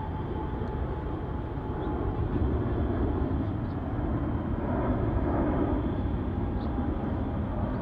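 Outdoor city ambience: a steady low rumble of background noise that swells a little about two seconds in.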